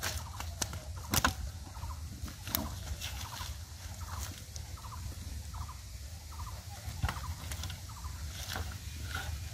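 A series of short calls from domestic fowl, with three sharp knocks over a steady low rumble.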